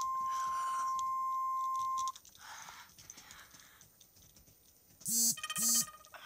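A steady single-pitch alert tone of an Emergency Alert System broadcast, which cuts off about two seconds in. Faint clicking follows, then two short, loud bursts about five seconds in.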